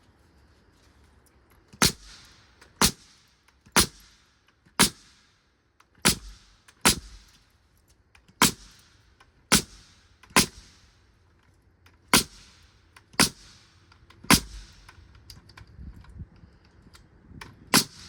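Nail gun firing nails into framing lumber: about a dozen sharp shots, roughly one a second with a few short pauses, each followed by a brief hiss.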